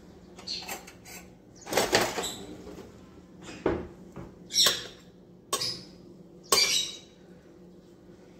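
A metal serving spoon scooping and scraping through cooked biryani rice in a metal pot: about six separate scrapes and knocks, some with a high squeak, the loudest about two seconds in.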